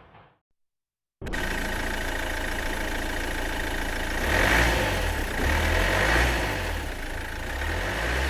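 Car engine running, cutting in suddenly about a second in and growing louder twice around the middle.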